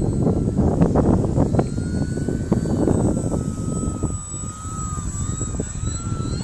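Wind buffeting the microphone in loud gusts, with the thin whine of the Visionaire 3D model plane's motor and propeller wavering in pitch as it flies.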